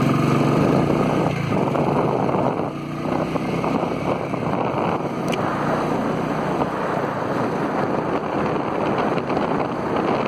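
Royal Enfield single-cylinder motorcycle accelerating hard from a standstill. Loud wind rush on the microphone builds with speed and covers the engine after the first few seconds.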